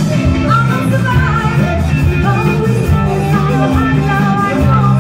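Live rock band: a woman singing lead over electric guitar, bass and a steady drum beat.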